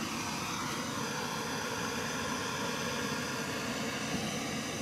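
MAPP gas torch flame burning with a steady hissing rush while copper pipe fittings are soldered.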